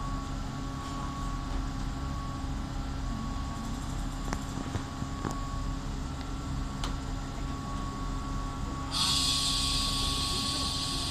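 Diesel railcars idling with a steady low rumble and a faint steady whine, with a few light clicks. About nine seconds in, a loud steady hiss starts abruptly.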